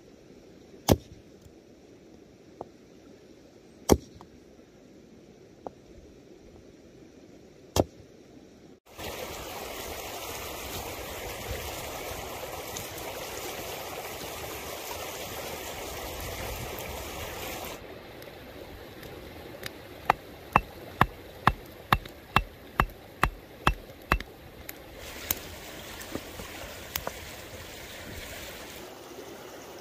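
A running brook, louder and closer for several seconds in the middle alongside a small wood campfire, with a quick run of about a dozen sharp knocks later on.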